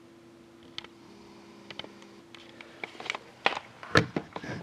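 Scattered clicks and light knocks of handling near a sealed cardboard hockey card box, getting busier and louder, with the loudest knock about four seconds in. A faint steady hum underneath stops about three seconds in.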